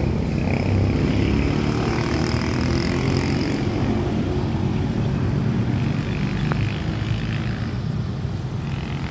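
A loud, steady, low mechanical rumble with a hiss above it, easing slightly toward the end.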